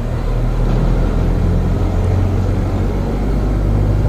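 Air-conditioner compressor running with a steady low mains hum while oil is being fed into it.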